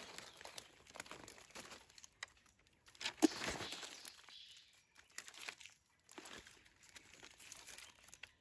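Irregular rustling and crinkling of dry plant matter being handled, with a sharp snap about three seconds in.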